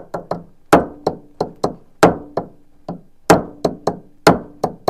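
Hammer blows on a metal roof-rack fitting of a van, backed by a stone held underneath: about fifteen sharp strikes, each heavy blow followed by one or two lighter taps, with a faint metallic ring under them.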